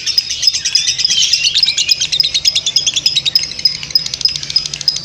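Lovebird singing its long 'ngekek' chatter: a rapid, unbroken run of sharp, high chirps over a steady shrill note.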